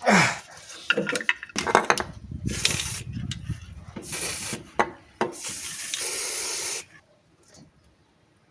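A few knocks and clatters of handled parts, then three hissing bursts of spray, the last about a second and a half long.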